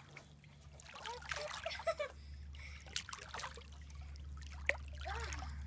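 Swimming-pool water lapping and trickling, over a steady low hum, with a single sharp click a little before the end.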